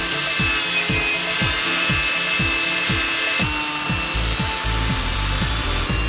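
Background music with a steady electronic beat of kick drum strokes about twice a second; a low bass line comes in about four seconds in.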